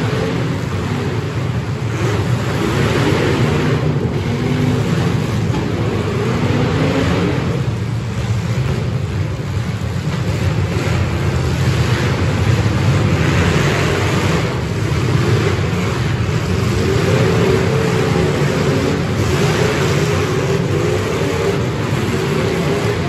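The engines of many full-size demolition derby cars running and revving together as one continuous din, rising and falling in pitch.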